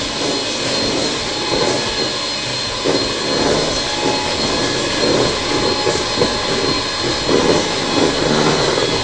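Electric hand mixer running steadily at speed, its beaters whipping egg whites in a stainless steel bowl as the whites begin to stiffen.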